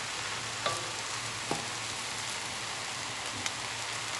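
Papaya leaves and tempe stir-frying in a wok, a steady sizzling hiss, with a few light clicks of the wooden spatula against the pan.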